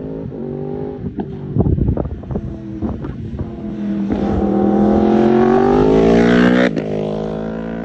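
2016 Yamaha R1's crossplane inline-four through an Akrapovic exhaust, heard from on the bike while riding. A run of short knocks comes around two seconds in. From about four seconds the engine note climbs steadily under acceleration, then drops suddenly to a lower steady note about seven seconds in.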